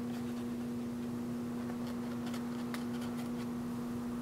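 Faint scratchy ticks of a small paintbrush dabbing thick acrylic paint onto a wooden panel, a few of them about two to three seconds in, over a steady low hum.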